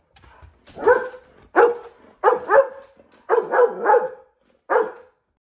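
Chocolate Labrador retriever barking excitedly at its owner's return: a string of loud barks coming singly and in quick runs of two or three, about eight in all.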